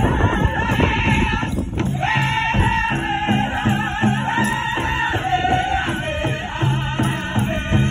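Powwow drum group singing a straight song: several voices singing high in unison over a steady, even drumbeat.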